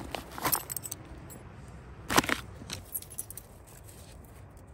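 Gear being handled in a zippered nylon pouch: short rustles and clicks, the loudest about two seconds in.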